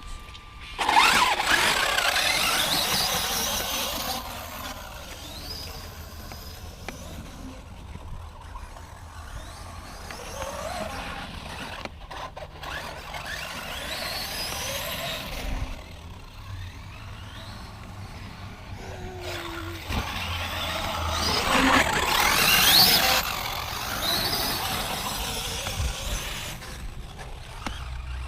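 Electric motor of a Traxxas X-Maxx RC monster truck whining and rising in pitch through hard bursts of throttle, with drivetrain and tyre noise. The loudest bursts come about a second in and again about three quarters of the way through.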